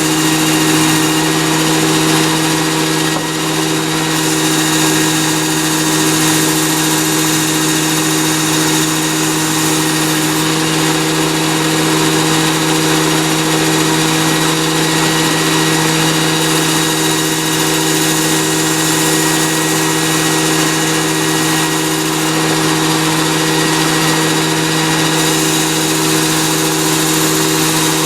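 Work Sharp Ken Onion Edition belt sharpener with the Blade Grinder Attachment running steadily, its motor and abrasive belt giving a constant hum with a hiss over it while a knife is sharpened.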